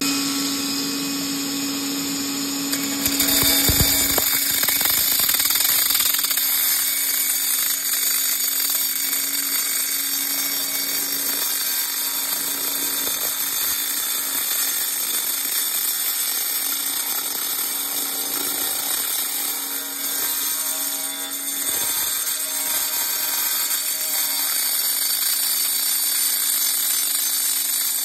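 Angle grinder with a diamond disc running and cutting through ceramic wall tile: the motor starts suddenly, then gets louder about three seconds in as the disc bites into the tile, and keeps grinding steadily with small dips.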